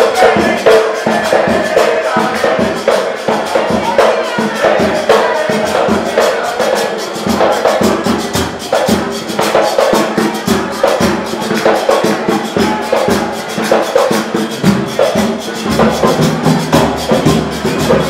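A drum troupe playing live: tall hand drums and a drum struck with sticks keep up a fast, steady rhythm of many strikes a second.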